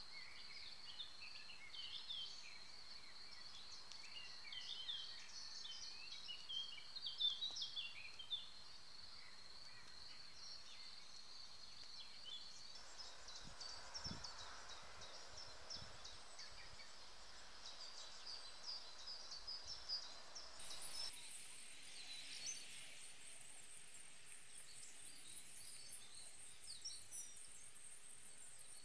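Faint outdoor ambience: small songbirds chirp and twitter in the background over a steady high-pitched whine. The whine jumps higher about two-thirds of the way through.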